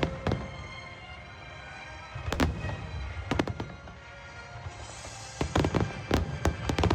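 Aerial fireworks bursting: a few separate booms, then a rapid string of bangs with crackling from about five seconds in. Music plays underneath.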